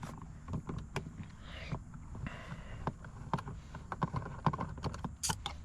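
Irregular light clicks and taps of a hand tool on screws and trim while door-panel screws are being taken out.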